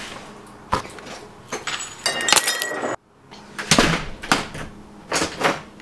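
A hurried series of knocks, bumps and clatter of things being handled, with a ringing clink about two and a half seconds in. Around the middle the sound cuts off abruptly, then more knocks follow.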